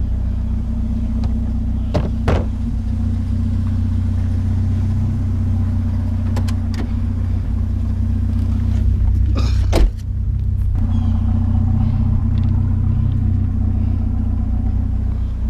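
A vehicle driving along, its engine and road rumble steady and low. There are a couple of short knocks about two seconds in and a brief louder rattle just before ten seconds.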